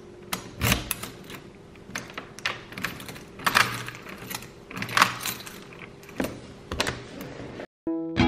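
Metal keys clicking and rattling in a door's cylinder lock as a key is inserted and turned, the keyring jangling: a string of irregular sharp clicks. Near the end this cuts off and plucked ukulele music begins.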